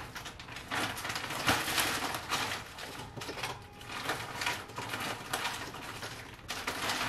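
Plastic bag of frozen tropical fruit chunks crinkling as it is shaken, with the pieces clattering irregularly into a blender cup.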